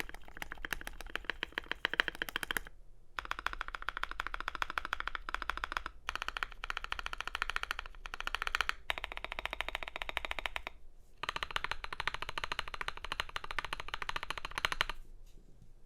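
Fast typing on a custom mechanical keyboard (FL.eSports MK870 with a polycarbonate plate, lubed Gazzew Boba U4T tactile switches and AKKO ASA keycaps): rapid key strikes in several runs with brief pauses, stopping about a second before the end.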